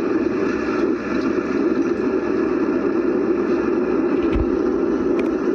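Boat engine running steadily at a constant pitch, a continuous drone.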